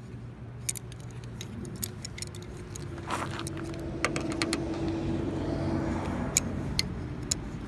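Light metallic clicks and scrapes of pliers and a coat-hanger hook working the door-latch rod inside a small hole in a Ford Mustang door, irregular and a few a second. Underneath, a low vehicle engine hum swells in the middle and eases near the end.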